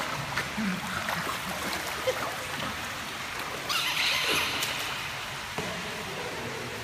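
Pool water splashing and lapping as a large Labrador-type dog paddles through it, with a brief louder splash a little past the middle.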